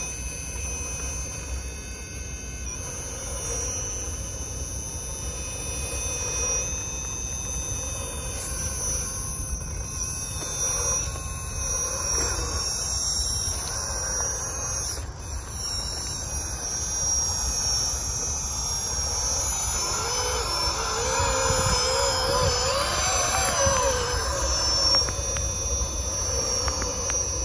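Electric drivetrain of an RC Magirus Deutz 6x6 scale trial truck whining as it crawls, the pitch rising and falling with throttle about two-thirds of the way in.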